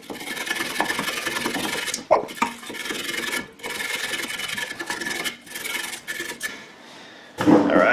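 Stiff hand wire brush scrubbing the metal caliper mounting surface of a rear brake clean, in rough back-and-forth strokes with a few short breaks. The brushing stops shortly before the end.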